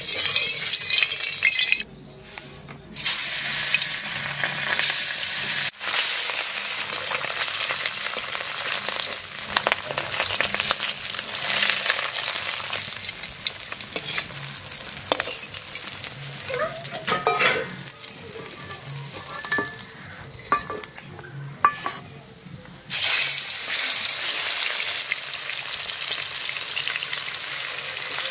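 Fish pieces sizzling as they fry in hot oil in a metal wok, with a metal spatula scraping and turning them. The sizzle drops off briefly a couple of seconds in, and again for a few seconds later on, before coming back full.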